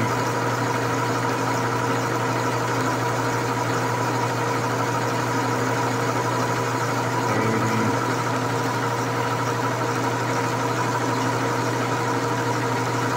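Grizzly metal lathe running steadily under power while its cutting tool takes a cut in the steel workpiece, a constant mechanical hum from the motor and geared headstock with the hiss of the cut.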